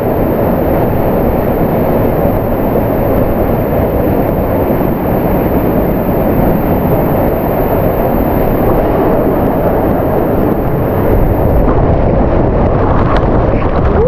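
Steady rush of a waterfall splashing into its rock pool, heard up close. Near the end the water pours right over the camera.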